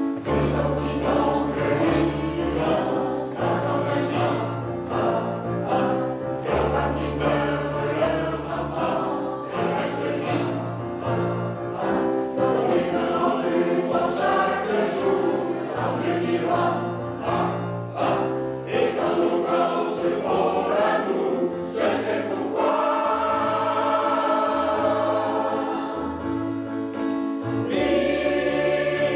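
Mixed choir of men's and women's voices singing a song in harmony, with electronic keyboard accompaniment carrying a steady bass line and beat. Near the end the voices hold long chords.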